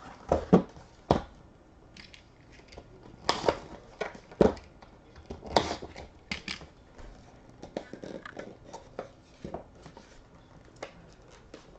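Panini Noir box packaging being handled and opened by hand: scattered taps and knocks of cardboard and rigid box pieces, with light rustling, as the lid comes off and the inner box is worked out.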